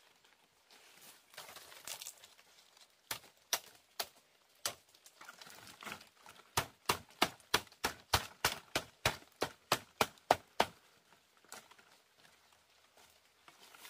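Leafy rustling as palm fronds are handled, a few single sharp knocks, then a fast run of about eighteen sharp strikes, roughly four a second, lasting about four seconds before it stops.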